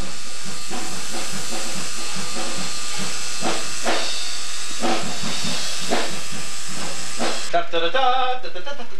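Loud steady hiss with scattered clicks. About seven and a half seconds in, the hiss thins out and voices take over.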